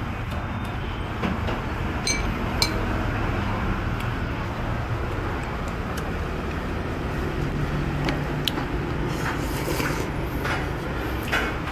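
Steady rumble of street traffic under a meal being eaten: about two seconds in, a utensil clinks twice against a ceramic bowl with a short ring, and near the end there are short bursts of noodles being slurped.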